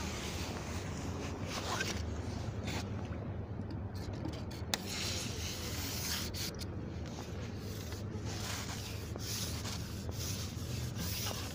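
Continuous rubbing, rustling noise close to the microphone over a steady low hum, with one sharp click a little before the middle.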